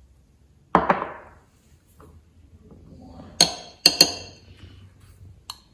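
A knock, then about two seconds later three sharp, ringing clinks of a metal teaspoon tapped against a bowl while spooning marinade ingredients onto meat, and one light clink near the end.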